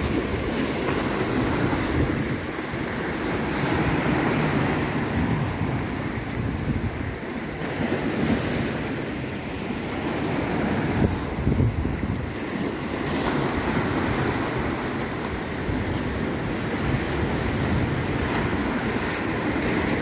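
Small sea waves washing over shoreline rocks, with wind gusting on the microphone.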